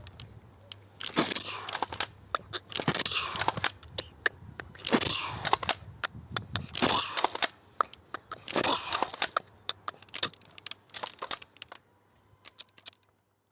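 Airsoft shotgun being reloaded by hand: five rounds of plastic scraping and clicking, roughly every two seconds, as shells are handled and pushed into the gun, then a few light clicks near the end.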